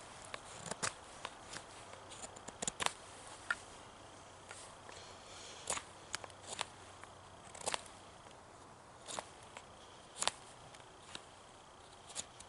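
Knife blade shaving a wooden spoon blank by hand: short, sharp cuts and scrapes at an irregular pace, about one a second.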